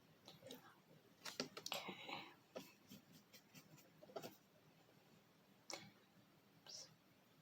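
Quiet, scattered small clicks and taps, with a brief scratchy rustle about two seconds in and two more taps near the end: painting supplies being handled and a brush being worked.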